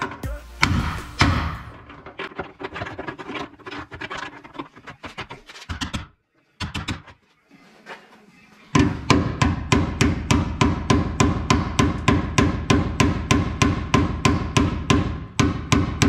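Ball-peen hammer striking the steel frame rail of a Honda Civic chassis. There are scattered blows at first and a short pause, then a fast, even run of ringing metal-on-metal strikes, about three or four a second.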